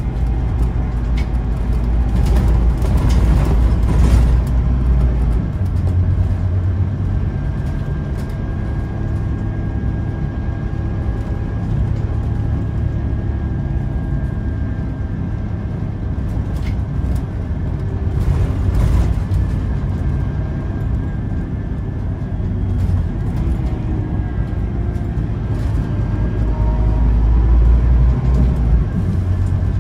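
Scania OmniLink CK230UB city bus driving, heard from inside the passenger cabin: a deep engine drone with the whine of its ZF Ecomat automatic gearbox and occasional interior rattles. Near the end the bus pulls away harder, and the whine rises in pitch as the engine gets louder.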